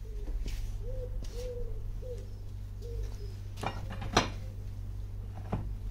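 A pigeon cooing in a run of short notes for the first three seconds or so, over a steady low hum. Then come sharp metal clanks, the loudest about four seconds in, as a steel bar is worked at the top of the gas-bottle sand battery's casing.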